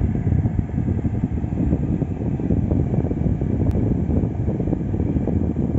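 Steady low rumble of car-cabin noise, with one faint click a little over halfway through.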